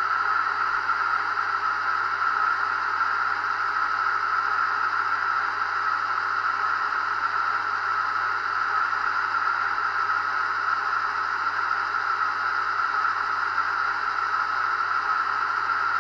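Hornby Class 56 model locomotive's Howes V4 DCC sound chip, playing a steady, hissy diesel running sound through the model's small speaker while it stands still.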